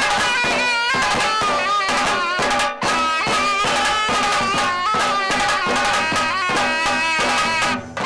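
Traditional folk music: fast, dense drumming under a wavering, ornamented melody line, with a brief break about three seconds in.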